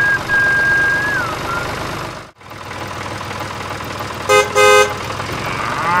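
Two short vehicle-horn toots about four seconds in, then a cow beginning to moo near the end, over a steady low engine hum. A high steady whistle-like tone sounds in the first second, and the sound cuts out briefly a little after two seconds.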